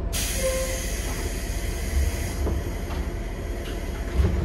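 Pneumatic doors of a JNR 103 series electric train closing: a sudden hiss of compressed air, strongest for about two seconds and then fading, with a low thump about two seconds in and another near the end.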